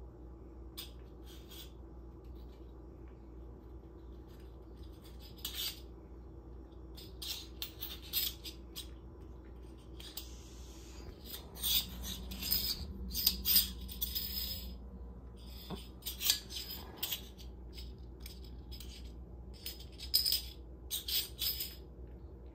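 Bottle cap batted by a cat's paw, skittering and clattering across a tile floor in scattered bursts of light clicks, busiest around the middle and again near the end. A faint steady low hum runs underneath.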